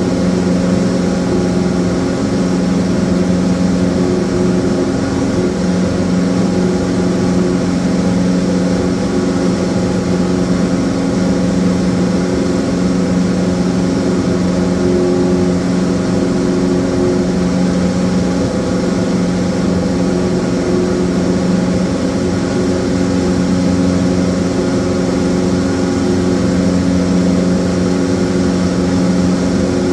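Small plane's engine and propeller droning steadily, heard from inside the cabin, with a constant pitch that does not rise or fall.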